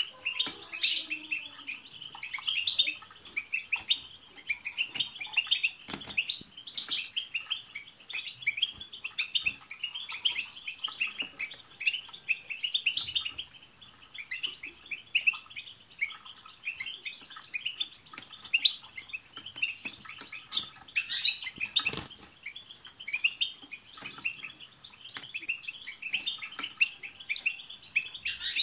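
Several European goldfinches twittering together: a continuous, dense chatter of quick notes, with short high notes repeated in quick runs near the end.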